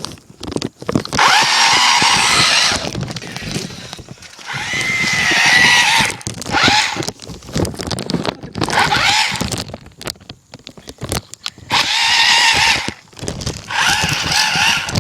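Toy RC car's small electric motor whining in repeated bursts of a second or two as it is driven through mud, some bursts rising in pitch as it spins up, with short gaps between.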